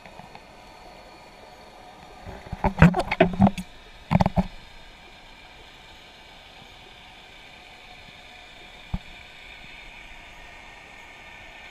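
Muffled underwater hiss with a faint steady hum, broken a few seconds in by two quick bursts of knocks and rattles against the underwater camera, and one sharp click near the end.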